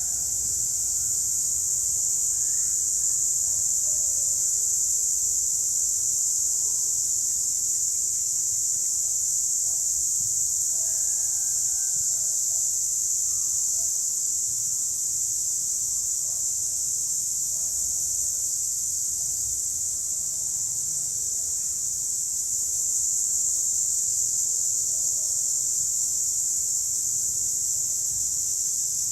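Chorus of cicadas buzzing steadily in one high, unbroken drone, with faint scattered chirps beneath it.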